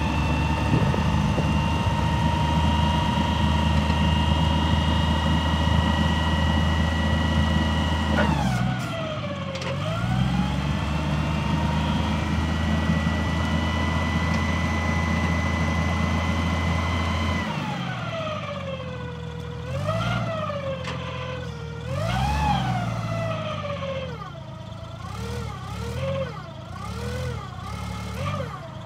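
Yale propane forklift running at high revs while driven, with a high whine that follows engine speed. The pitch holds steady, dips about eight seconds in and comes back up, then in the last ten seconds rises and falls several times as the engine is revved up and let down.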